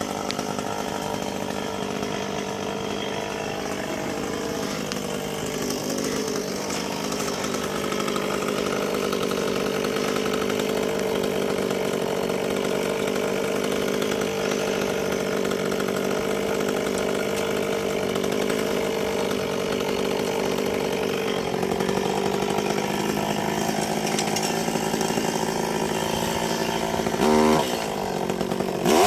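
Chainsaw running steadily at high speed, its pitch held nearly constant, with a brief waver in pitch near the end.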